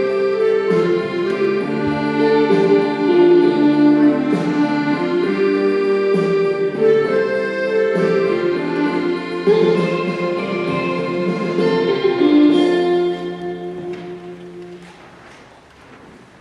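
Organ music: held chords changing every second or two, the last chord released about thirteen seconds in and fading away in the church's echo.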